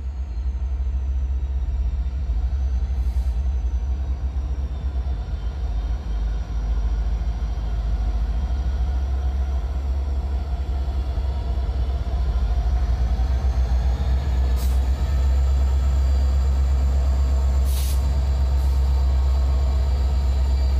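Norfolk Southern diesel freight locomotives running as they roll slowly closer, a deep steady engine rumble that grows louder about fifteen seconds in, with a faint high wheel squeal and a few brief clicks.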